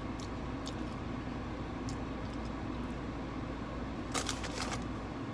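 Potato chips being eaten: a few sharp crinkly clicks, then a quick cluster of crunches and crackles about four seconds in, over a steady low hum.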